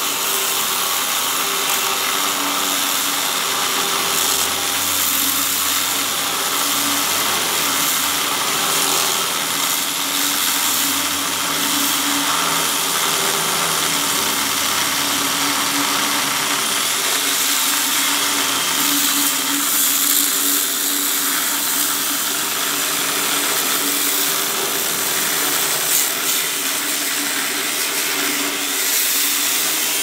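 A metalworking power tool running steadily on the steel of a dump truck bed: a continuous hissing noise with a low hum under it.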